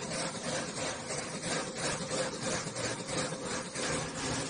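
Machinery running: a steady hum with an uneven pulsing of about three or four beats a second.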